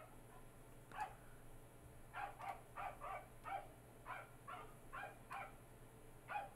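A dog barking about a dozen times, in short sharp barks, several in quick pairs.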